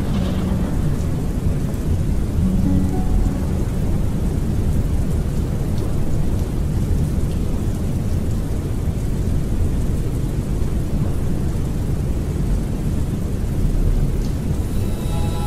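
Steady rain with low rolling thunder, a rain-and-storm ambience laid under the music. Near the end, a new piece of orchestral music begins with clear sustained notes.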